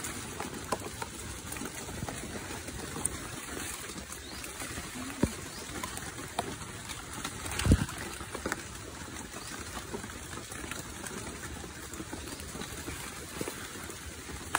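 Wet foliage rustling and small stems snapping as young climbing-fern shoots are picked by hand, over a steady hiss of trickling water. A dull thump sounds a little past halfway.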